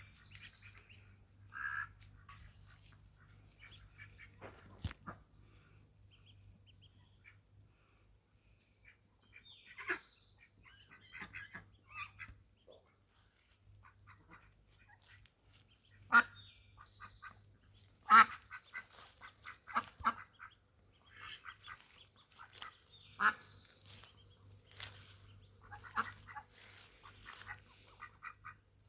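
Domestic ducks quacking in short, scattered calls, with a few loud sharp quacks in the middle and busier calling near the end.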